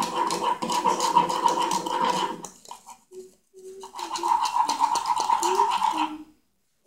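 A metal spoon scraping and stirring quickly against the inside of a container, mixing chocolate-drink powder into melted butter, in two bouts with a short pause between.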